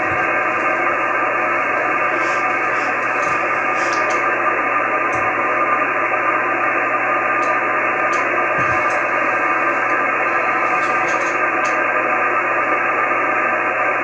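Icom IC-9700 receiving the 2 m USB downlink of a linear satellite transponder with no station talking: a steady hiss of band noise through a narrow single-sideband filter, with a few faint steady tones in it.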